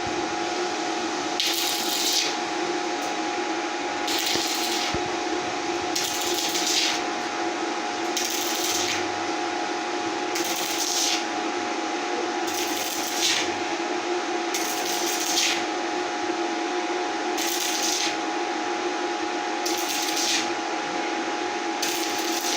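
Can-sealing machine running with a steady electric hum, a short hissing rasp repeating about every two seconds as it works through can after can.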